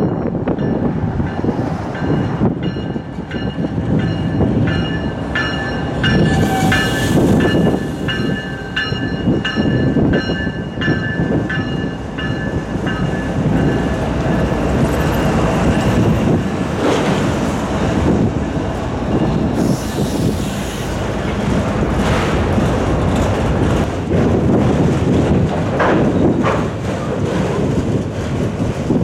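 Freight train passing close by: the Canadian Pacific GE ES44AC lead locomotive and a trailing Union Pacific Tier 4 GE diesel locomotive work past, then a string of autorack cars rolls by with a steady rumble and wheel clatter. A steady high whine of several tones runs through the first dozen seconds, then fades.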